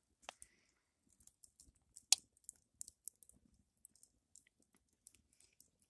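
Wood fire crackling faintly with scattered sharp pops, the loudest a single crack about two seconds in.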